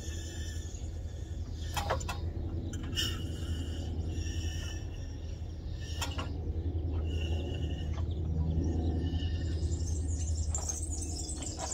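Steady low hum with birds chirping over it and a few isolated sharp clicks.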